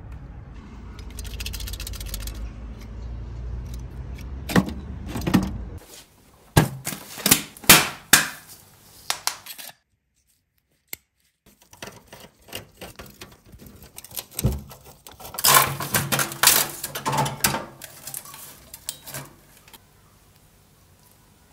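Clicks, knocks and clatter of computer parts being handled, in several quick bunches with a short silent break about halfway. A low steady rumble underlies the first few seconds.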